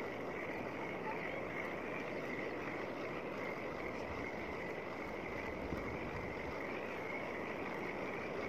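Steady wind and choppy open water lapping, an unbroken rushing noise.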